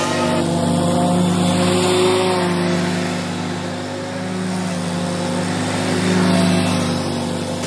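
Scag Turf Tiger II zero-turn mower's engine running steadily while mowing, a deep even hum that grows louder about six seconds in as the mower comes close.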